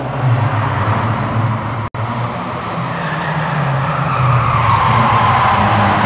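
Opel Manta A 1900's four-cylinder engine running hard as the car drifts, with tyres squealing on the concrete in the second half. The sound cuts out for an instant about two seconds in.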